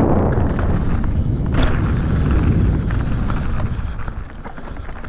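Mountain bike rolling fast over a loose, rocky trail: wind rumbling on the camera microphone over tyre crunch and the rattle and clatter of the bike. The wind rumble eases about three and a half seconds in, leaving the tyre noise and scattered sharp clicks.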